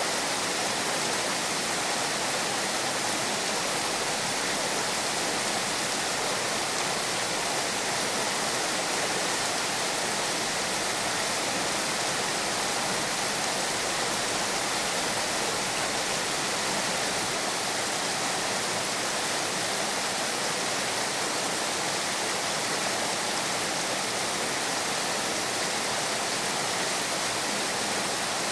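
Heavy rain falling steadily: a dense, even hiss with no let-up and no thunder.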